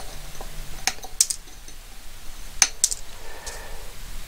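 Small metal hand tools being handled at a workbench: a handful of sharp clicks and light taps from side cutters and the wired tube base, in two or three short clusters.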